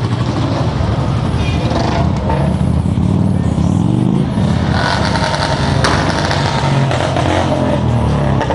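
Motorcycle engines running steadily, a low continuous rumble, mixed with street traffic.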